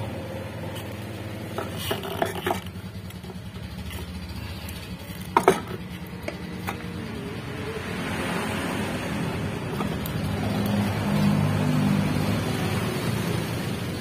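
Scattered metal clicks and clacks as the scooter's rear driven pulley and clutch assembly is worked and pressed onto the CVT shaft, the sharpest clack about five seconds in. In the second half a steady low mechanical hum rises underneath.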